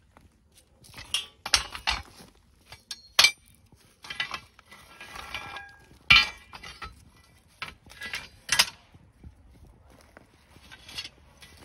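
Rusty scrap metal clanking and clinking as pieces in a junk pile are shifted and a leaf spring is pulled out: a series of sharp irregular clanks, some ringing briefly, with scraping between them.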